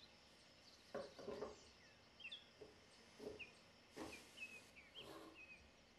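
Light wooden clicks and taps, about six spread over a few seconds, as thin pine sticks are handled in a wooden basket frame, with faint bird chirps in the background.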